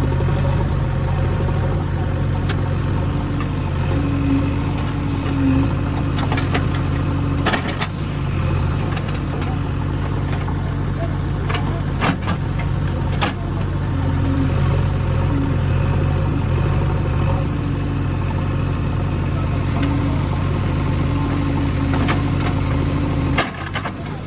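Diesel engine of heavy farm or construction machinery running steadily at low revs, with a few short sharp knocks scattered through.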